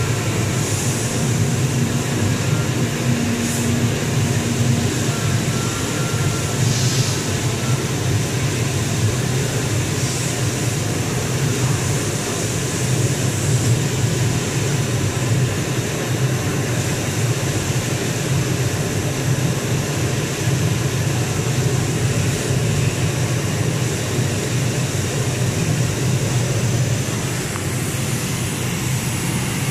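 MISSILECNC M5S CNC router with an oscillating knife cutting printed board: a steady low machine hum with an even hiss over it.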